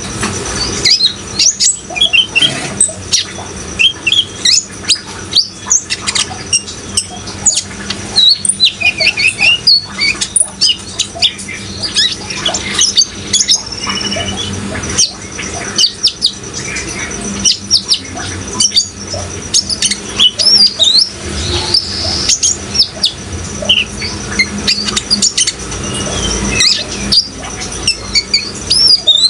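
Sunbird singing in rapid, high chirps and short trills, one after another, over a steady hiss of running water.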